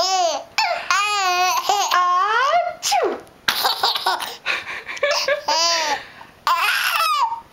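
Baby laughing hard in about six high-pitched bursts with short breaths between them, set off by a fake sneeze.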